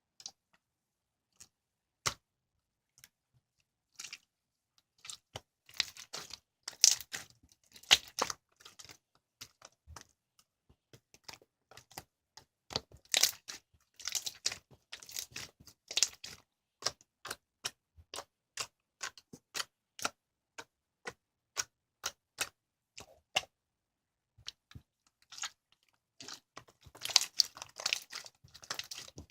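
Slime mixed with lavender petals being squished and poked by hand, giving sharp clicks and little popping crackles. The clicks run in uneven rapid series, with denser crackling runs about six seconds in, around thirteen to sixteen seconds, and again near the end.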